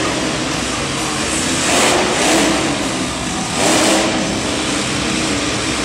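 BuckedUp monster truck's engine running loud, surging as it is revved about two seconds in and again near four seconds.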